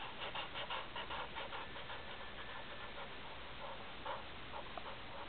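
A pen or pencil scratching on paper in quick, short drawing strokes: a rapid run in the first second and a half, then a few more strokes around four seconds in.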